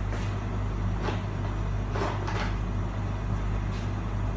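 Steady low hum of a running kitchen appliance, with a few light knocks and clatters about one and two seconds in.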